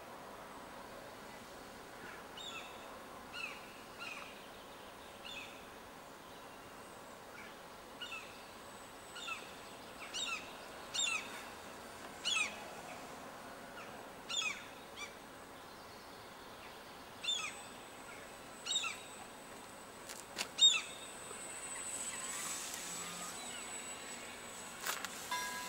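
Common gulls calling: repeated short calls that each drop in pitch, about one a second, a few of them louder around the middle. A faint steady high whine comes in after about 17 seconds, and a couple of sharp clicks come about 20 seconds in.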